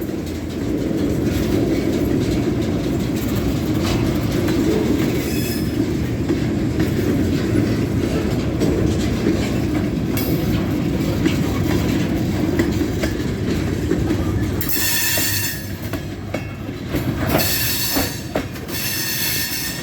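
Freight train cars rolling past with a steady low rumble of wheels on rail. About fifteen seconds in, high-pitched wheel squeal sets in and comes and goes to the end.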